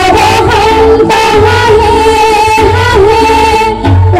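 A group of women singing together into microphones, with instrumental accompaniment and a steady low beat.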